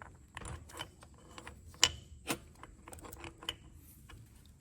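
Irregular clicks and light metallic clinks of small locker parts (springs, pins and gear pieces) being handled and worked into a Dana 30 differential carrier, the loudest click a little under two seconds in.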